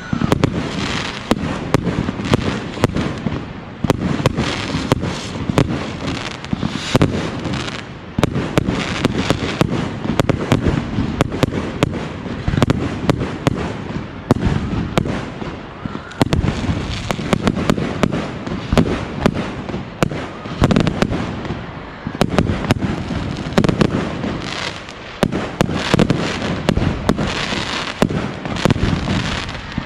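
Fireworks display going off in rapid succession: sharp bangs about every couple of seconds over continuous crackling.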